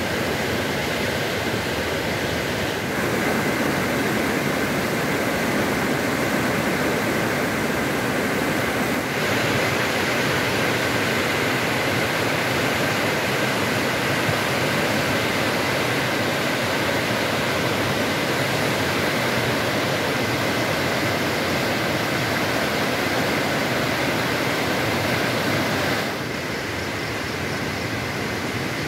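The Teesta river in flash flood: fast, muddy floodwater rushing as a steady loud noise. It drops in level a couple of seconds before the end.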